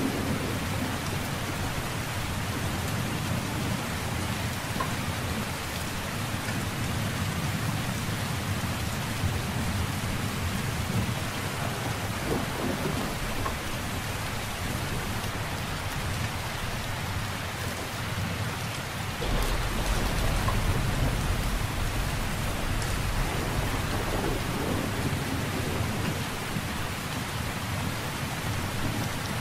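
Steady rain falling, with a low roll of thunder swelling about two-thirds of the way through and fading after a few seconds.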